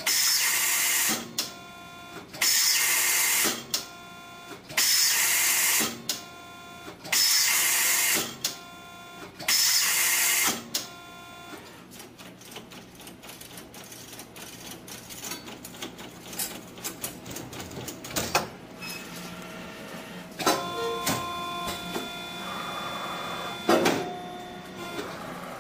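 Gerber MultiBender MR487 steel-rule processor running through its cycle: about six loud one-second bursts of hiss and whine in the first half, then quieter clicking and whirring from the machine's motors and tooling.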